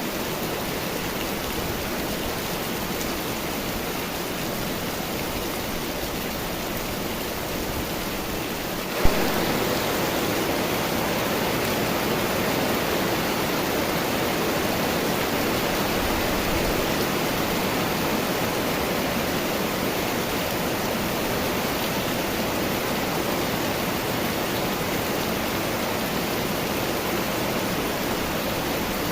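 Steady summer-storm rain. About nine seconds in there is a single sharp click, and after it the rain runs a little louder and fuller.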